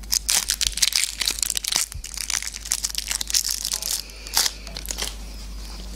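A crab stick's thin wrapper film crinkling and crackling as it is peeled off by hand. The crackles are densest in the first couple of seconds, then thin out to a few sharper crackles.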